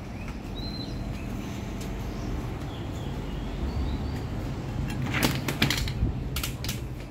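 Steady low hum of street ambience with a few short high chirps, then a cluster of clicks and knocks about five seconds in as the glass shop door is pulled open and passed through.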